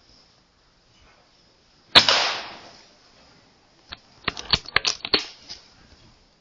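Air Arms S510 Ultimate Sporter .177 PCP air rifle, sub-12 ft-lb, fired once about two seconds in: a sharp crack that trails off over about half a second. About two seconds later comes a quick, irregular run of sharp clicks and knocks.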